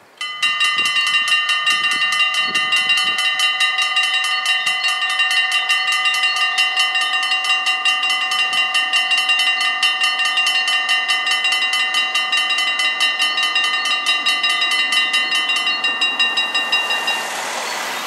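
Four mechanical level-crossing bells of a Dutch AHOB crossing start ringing about half a second in, a rapid clanging of several bells of different pitches at about four strikes a second, warning while the barriers come down. Near the end the ringing drops in level as some bells fall silent, and a rising hiss comes in.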